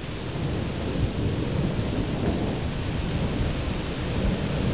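Thunderstorm sound: a continuous low rumble under a steady hiss, growing slightly louder, with no sharp crack.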